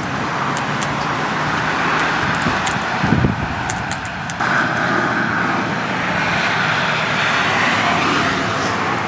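Steady road traffic noise from passing cars, with a low thump about three seconds in and a rise in level a little after four seconds.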